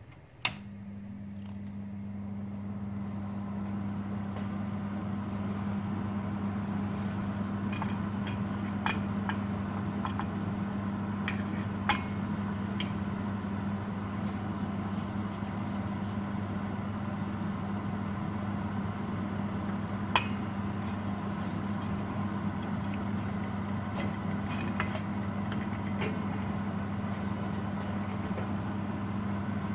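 A sharp click about half a second in, then a steady hum and hiss that builds over the first few seconds: a gas stove burner lit under a thin stainless steel pan. A metal spoon clinks against the pan now and then as the chocolate in it is stirred.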